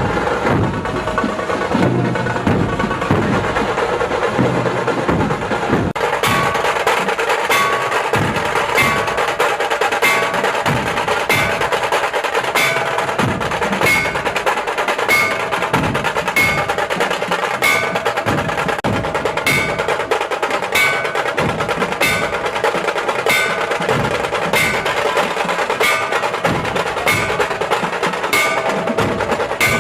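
Music with a steady percussion beat and bell-like ringing strikes. About six seconds in, the pattern shifts to evenly spaced, brighter ringing hits, roughly three every two seconds.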